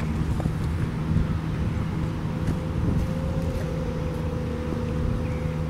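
Steady outdoor rumble, mostly wind buffeting the microphone, with a thin steady mechanical hum and a few faint ticks.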